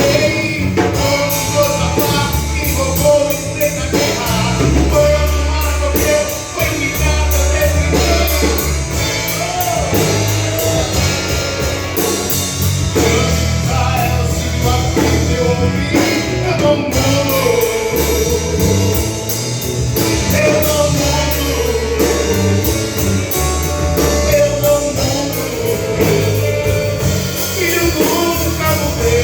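A band playing a gospel song with a lead voice singing over a drum kit, bass and guitar at a steady beat.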